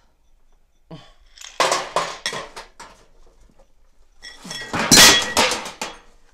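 China and cutlery clattering and clinking as tea is served, in two bursts: one about a second and a half in and a louder one near the end.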